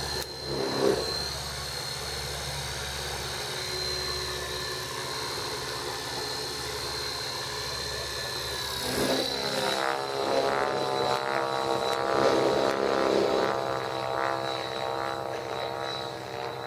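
Radio-controlled model airplane's engine and propeller droning in flight. It grows louder with a slight drop in pitch about nine seconds in as the plane passes close, then fades as it climbs away.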